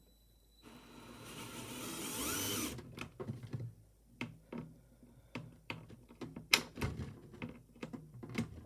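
A power drill driving a screw into the wall for about two seconds, getting louder as it runs, followed by a string of sharp clicks and knocks as the panel and screws are handled.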